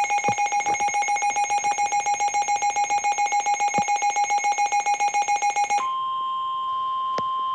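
Weather radio alert for a tornado warning: a radio's built-in alarm beeping rapidly in a fast pulsing pattern, which about six seconds in gives way to the steady, unbroken NOAA Weather Radio warning alarm tone that comes before the spoken warning.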